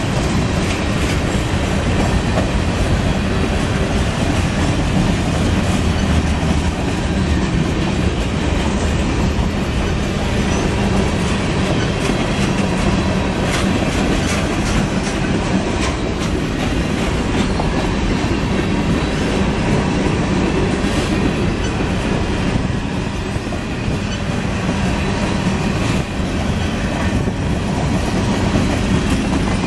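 Loaded freight train of covered hopper cars rolling past close by: a steady rumble with the clatter of steel wheels over the rails.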